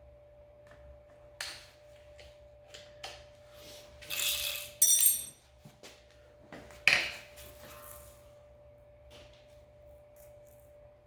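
Steel pieces being handled in a workshop: a short scrape, then sharp clanks and clinks of metal set down and knocked together, the loudest three near the middle, with a faint steady hum underneath.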